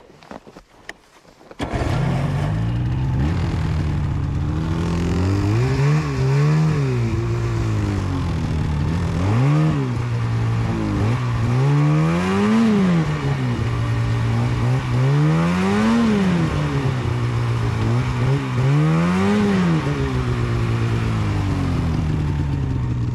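Polaris snowmobile engine starting up about a second and a half in, then idling and revved six times, its pitch climbing and falling back each time. The engine bogs and won't accelerate, which the rider puts down to a failing fuel pump.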